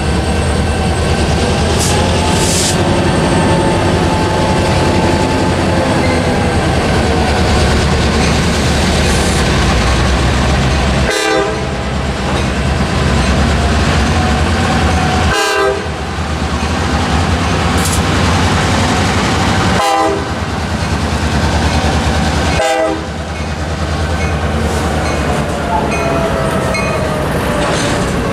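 A Norfolk Southern diesel locomotive hauling a double-stack intermodal freight train, approaching and passing with a loud, steady low engine rumble and the clatter of rail cars. Its air horn sounds chords that bend in pitch and fall near the end as the train goes by.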